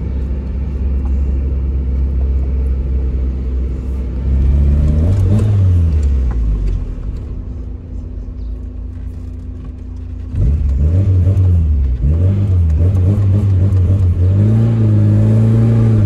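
Tofaş Doğan SLX's four-cylinder engine, heard from inside the cabin, being driven hard: the engine note climbs about four seconds in, falls back around a gear change and runs quieter for a few seconds, then about ten seconds in it surges loud again, rising and falling several times before holding steady at high revs.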